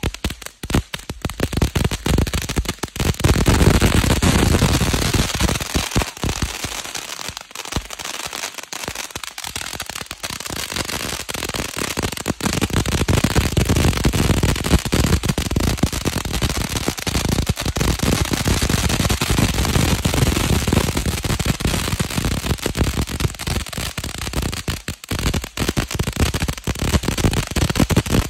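Ground firework fountain spraying sparks with a dense, continuous crackle of rapid small pops. It is loudest a few seconds in, eases somewhat around the middle, then builds again.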